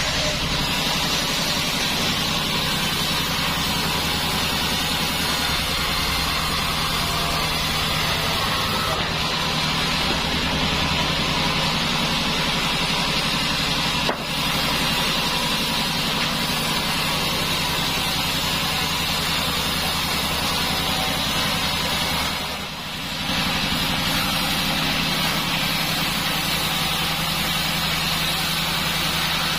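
Sawmill band saw machinery running steadily, a low engine hum under a loud hiss, with two brief dips in level, once about halfway and once near three-quarters of the way through.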